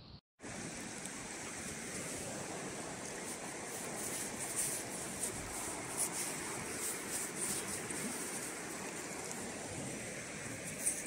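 Steady rushing of a fast river, with short gritty scrapes of wet sand as a hand digs into it.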